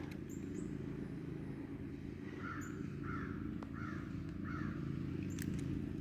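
A bird calling four times in a regular series, about two-thirds of a second apart, over a steady low background hum.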